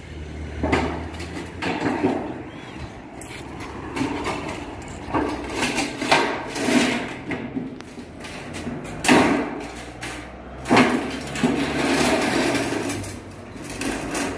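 Sheet-metal rain gutter being handled and fitted into place: an irregular series of metallic knocks, rattles and scrapes as the thin metal is pushed and flexed.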